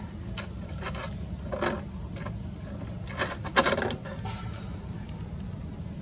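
Empty plastic water bottle crinkling and clattering against brick paving as a baby macaque handles and drops it: a few short crackles, the loudest about three and a half seconds in.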